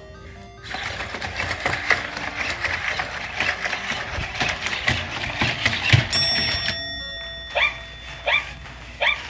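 Sony aibo ERS-1000 robot dog's joint motors whirring and clicking, with its feet scuffing, as it walks off its charging station, a dense noisy clatter for about six seconds. Then music starts, with a short rising chirp repeated about every 0.7 s.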